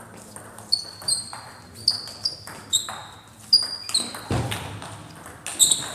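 Table tennis rally: the celluloid ball clicking sharply off the rackets and the table in quick, irregular succession, each hit ringing briefly in the gym hall, with a heavier thud about four and a half seconds in.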